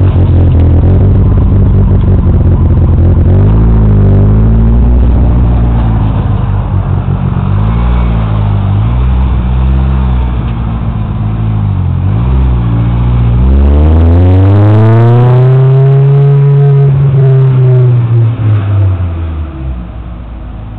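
Turbocharged 4G63 four-cylinder of an all-wheel-drive Mitsubishi Mirage, running with revs wavering up and down. About two-thirds of the way in it revs in one long sweep that rises and falls back, then the sound fades near the end.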